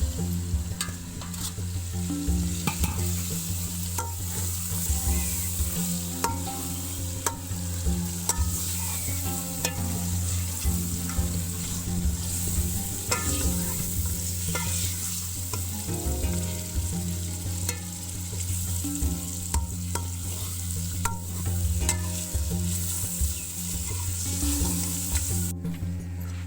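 Chicken frying and sizzling in a pan while it is stirred, with frequent short clicks and scrapes of the spoon against the pan over a steady hiss.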